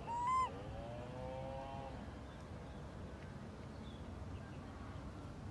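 Macaque coo calls: one short, clear call rising slightly just after the start, then a fainter drawn-out call that fades by about two seconds in. A low steady hum runs underneath.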